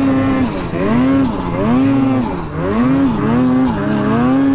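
Ski-Doo mountain snowmobile engine revving up and down over and over as the rider works the throttle through deep powder.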